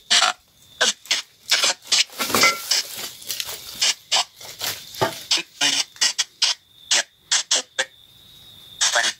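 Spirit box sweeping through radio stations: rapid, choppy bursts of static, several a second, with fleeting voice-like fragments and a faint steady high whine behind them.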